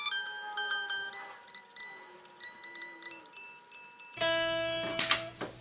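Electric guitar strings picked while being tuned, heard thin and high with no amplifier body, one note sliding down in pitch as its tuning peg is turned. About four seconds in, the amplified sound cuts back in with a low hum, a ringing note and a couple of sharp strums.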